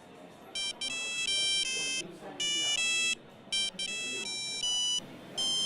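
Nokia 3210 mobile phone playing a custom monophonic ringtone: a tune of buzzy electronic beeps in short phrases with brief pauses, starting about half a second in.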